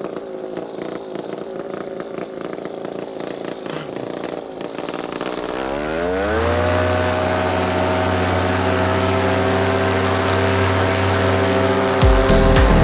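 Paramotor's two-stroke engine running at low throttle, then revved up about halfway through to a steady, high-pitched full-power drone for take-off. A low musical beat joins near the end.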